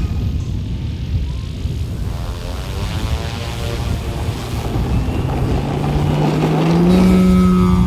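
Propeller and electric motor of a large RC aerobatic airplane modelled on the SLICK 580, in flight; a hum that climbs in pitch and gets louder from about five seconds in.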